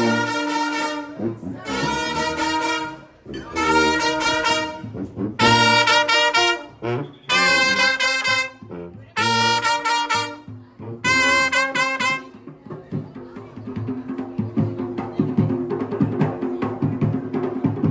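A Junkanoo-style band's brass horns playing a run of about seven loud held blasts, each about a second long. About twelve seconds in the horns stop and dense, fast drumming and percussion take over beneath a low sustained note.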